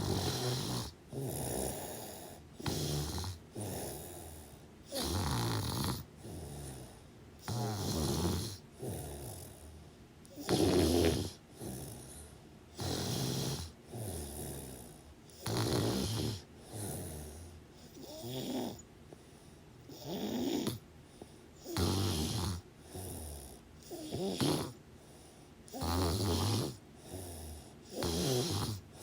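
Snoring in deep sleep: a regular run of snores, the strongest about every two and a half seconds, with softer breathing sounds between them.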